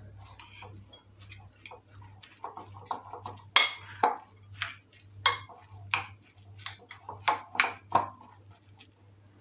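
Spoon clinking and scraping against a bowl while stirring grated turnip and onion together: irregular taps, the loudest about three and a half seconds in, dying away shortly before the end.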